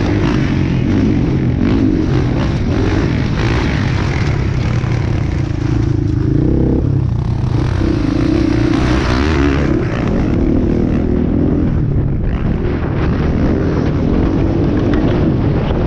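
Motocross bike engine under hard riding, its pitch climbing and dropping again and again as the throttle opens and closes.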